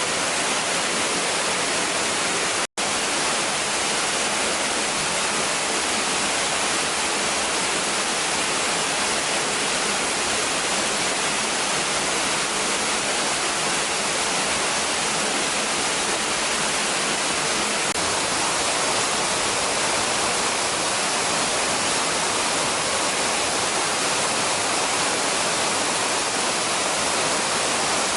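Waterfall pouring steadily: a dense, even rush of falling water. It cuts out for a split second a little under three seconds in.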